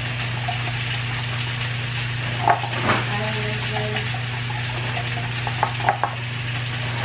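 Metal wire whisk beating a honey-mustard butter dressing in a glass bowl: a steady swishing hiss, with a few sharper clicks of the whisk against the glass.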